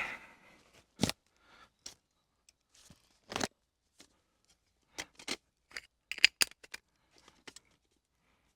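Scattered sharp clicks and crackles at irregular intervals, with a quick cluster of them about six seconds in.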